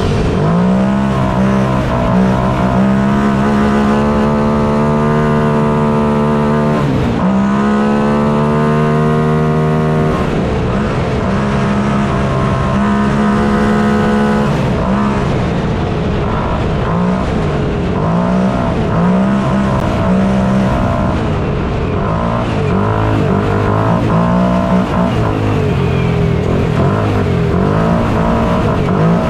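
Small off-road race car engine running hard, its pitch holding high, then dipping and climbing again several times as the revs fall and pick back up.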